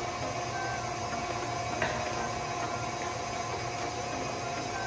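Electric mixer running steadily at medium speed, beating cream cheese, sugar and salt, with an even motor hum. A single light click about two seconds in.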